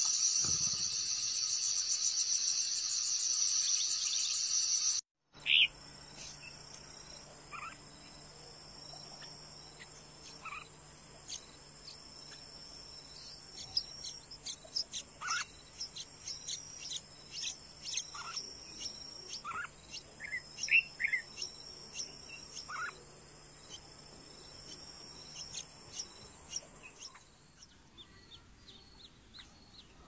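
A loud, pulsing insect trill for the first five seconds. After a cut comes a steady high insect whine, with scattered short, sharp chirps from nestlings begging for food.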